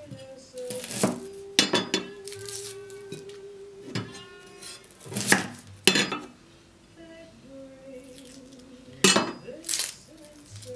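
Chef's knife knocking sharply against a wooden cutting board as a shallot is trimmed, several separate knocks at uneven intervals, over soft background music.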